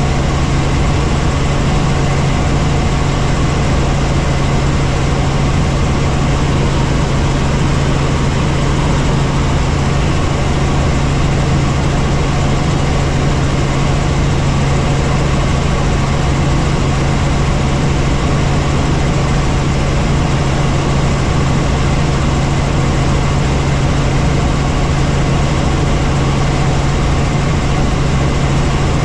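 Helicopter in flight heard from inside the cabin: a steady, unchanging drone of engine and rotors with a strong low hum.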